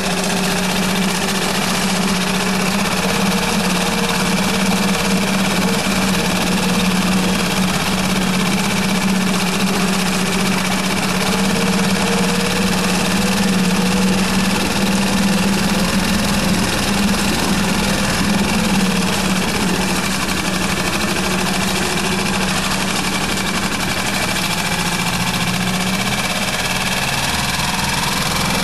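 Tohatsu MFS-3.5A single-cylinder four-stroke outboard running steadily on test, its leg in a barrel of water.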